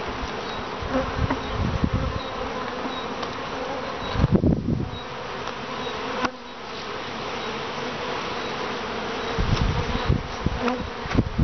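Honeybees flying in numbers around the entrances of a hive, a steady buzzing hum. A few short low rumbles come and go, the loudest about four seconds in.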